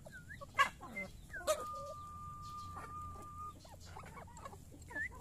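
Brown hens feeding and calling: short chirping notes, two sharp clicks in the first second and a half, then one long steady high note held for about two seconds.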